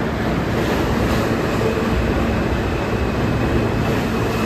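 NYC Subway R160A-1 train running on the rails: a steady, even rumble of wheels and running gear, with a faint high whine that comes in about a second in and holds.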